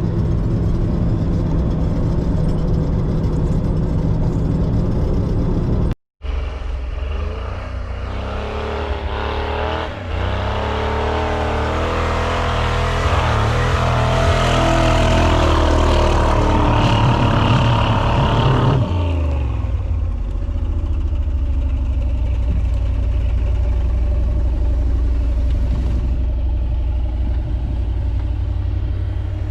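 Ford Bronco engine with freshly fixed exhaust leaks, driving under load. It runs steadily, breaks off for a moment, then revs up with a rising pitch for about ten seconds. About two-thirds of the way in it drops back and settles into a low, steady drone.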